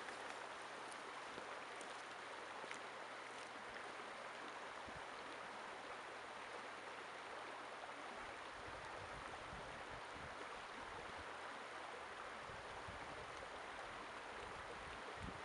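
Shallow river running over rocks: a steady, even rush of flowing water.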